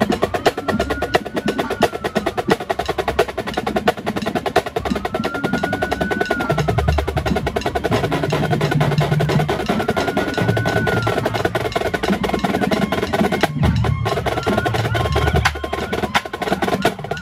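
A drum corps snare line playing a fast break in unison on marching snare drums: dense, rapid strokes with a short gap about two-thirds of the way through.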